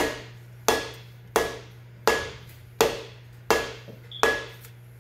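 Rubber mallet blows driving a Flygt C-type impeller down its keyed shaft to seat it: seven even strikes about 0.7 s apart, each with a short metallic ring. The blows stop near the end.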